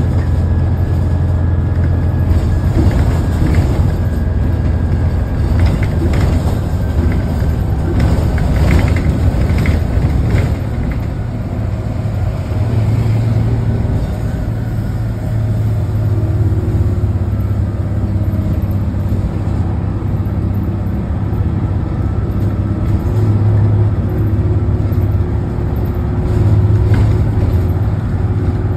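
Ride inside a moving 1975 AM General city bus: a steady low drone, with rattles and knocks mostly in the first ten seconds.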